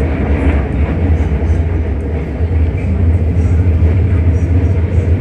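Xiamen Metro Line 1 train running at speed: a steady, loud low rumble of wheels on rail and running gear.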